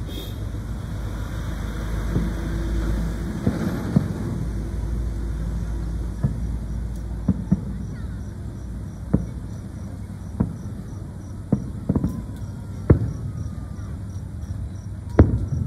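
Aerial firework shells bursting in the distance: about a dozen sharp booms at irregular intervals, the loudest near the end, over a steady low background rumble.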